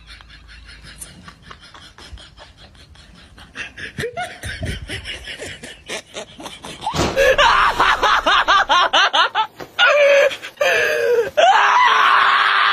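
Laughter, quiet at first and much louder from about seven seconds in, followed near the end by a loud, steady, dense sound.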